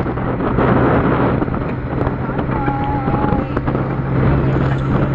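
Vehicle engine running steadily while driving, with road and wind noise over it.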